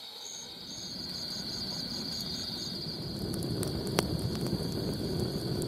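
Campfire of burning sticks crackling, with one sharp pop about four seconds in, over a steady chorus of crickets.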